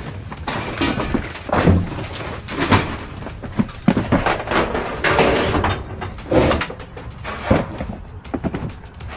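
Irregular knocks and clatter, about eight in nine seconds, of tools and equipment being moved around in a work van.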